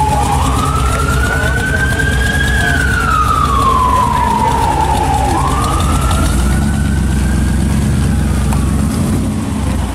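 A wailing siren slowly rising and falling, roughly one cycle every five seconds, over the low rumble of a classic Chevrolet Impala's engine running.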